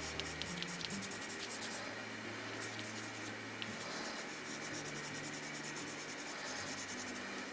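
Coloured pencil scratching on paper in short, quick strokes, shading in small areas.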